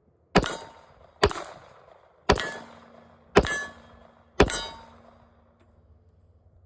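Five handgun shots fired about a second apart, each followed by a metallic ring that fades.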